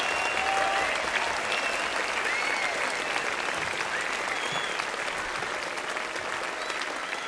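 Concert audience applauding, with scattered whistles and cheering voices, slowly dying down.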